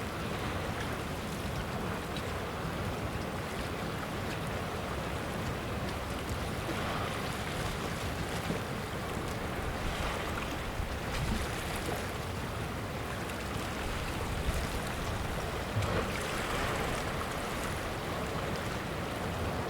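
Sea surf washing over a rocky shore: a steady low rumble under swells of hiss that rise and fall every few seconds as waves break and drain back.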